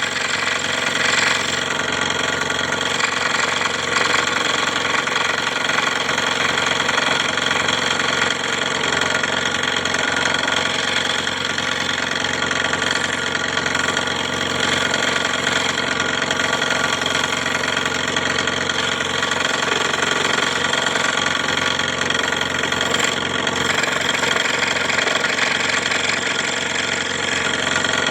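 Scroll saw running steadily.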